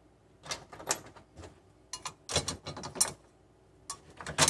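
Pop rivets being pushed by hand into the holes of a steel plate: a series of short metallic clicks and taps, the loudest near the end.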